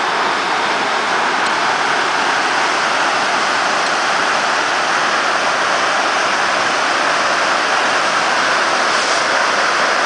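Waterfall pouring into a rocky plunge pool: a loud, steady rush of falling water.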